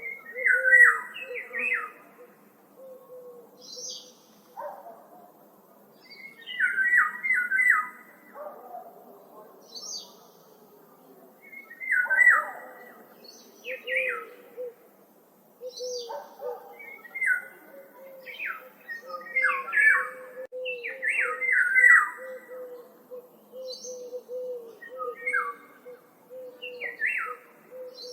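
Woodland songbirds singing: one bird repeats a short, bright phrase every few seconds, over a steady string of soft, low, short notes from another bird.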